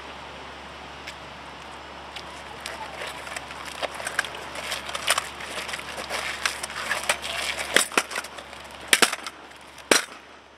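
Drill rifles being handled by a platoon: scattered clicks and knocks, with a few sharper knocks near the end as rifle butts come down on the asphalt.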